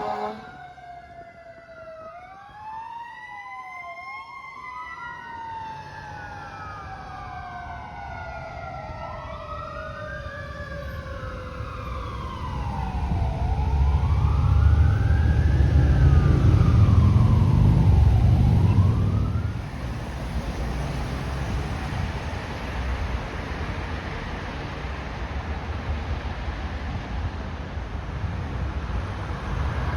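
Fire truck sirens wailing, two or more rising and falling tones overlapping and sliding lower in pitch as the truck passes. A loud engine rumble swells about halfway through. The sirens stop about two-thirds of the way in, leaving traffic noise.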